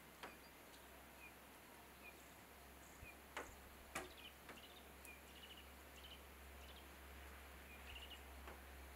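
Near silence: faint outdoor hiss with a few scattered soft clicks, the loudest about four seconds in, and several short, high, faint bird chirps.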